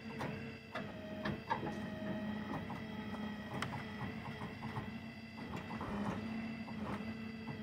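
Hydraulic power unit of a tilt-bed shed-moving trailer running with a steady hum and whine while the bed tilts under a wooden shed. Scattered sharp clicks and knocks sound over it, with a run of quick ticks in the middle.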